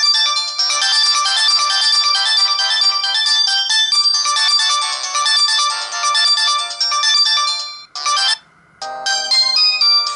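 Stock ringtones of a Samsung GT-E2120 mobile phone: a fast, high-pitched electronic melody ends about eight seconds in. After a brief pause a different, lower tune begins.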